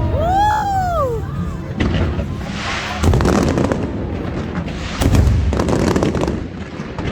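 Aerial fireworks bursting: deep booms about two, three and five seconds in, with crackling after them. Near the start there is a whistle that rises and then falls in pitch.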